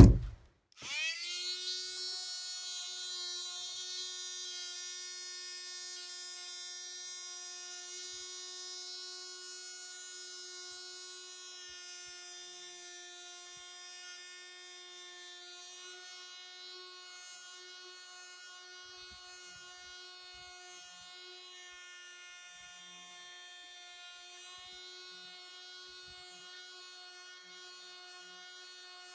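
Small electric sander starting up just under a second in, its motor whine rising quickly, then running at one steady high pitch while sanding a wooden model ship hull.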